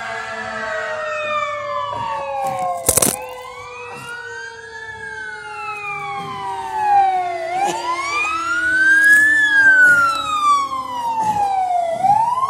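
Emergency vehicle siren wailing, its pitch sweeping slowly up and down every few seconds, louder in the second half. A sharp knock about three seconds in.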